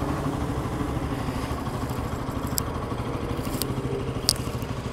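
Bajaj Pulsar NS200's single-cylinder engine idling steadily for a pollution (emissions) check, with a few brief sharp clicks near the middle and end.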